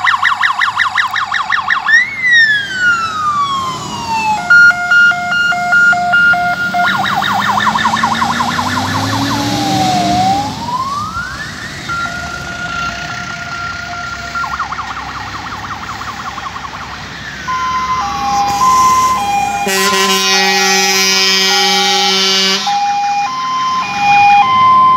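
Fire engine electronic sirens cycling through their modes: a fast yelp, a slow rising-and-falling wail and a two-tone hi-lo. About 20 s in, a horn blast lasts about two and a half seconds over the sirens.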